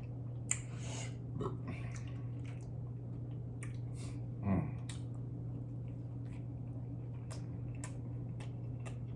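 Close-up chewing of a cheeseburger, with scattered wet mouth clicks and smacks over a steady low hum. A short falling "mm" of pleasure comes about halfway through.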